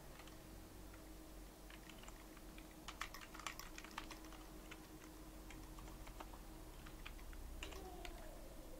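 Faint typing on a computer keyboard: a flurry of key clicks about three seconds in and a few more near the end, over a faint steady hum.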